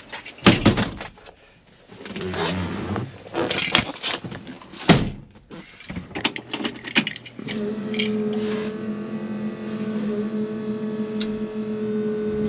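Knocks and clatter of a car seat being refitted. About seven seconds in, the 1965 Ford Mustang's electric fuel pump starts up with a steady hum, sounding through floor insulation just added to quiet it.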